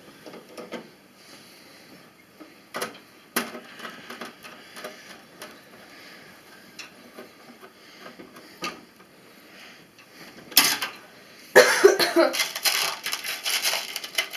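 Scattered small metallic clicks and taps of screws and a screwdriver against a computer case as a motherboard is screwed in, then a dense clatter of small metal parts near the end.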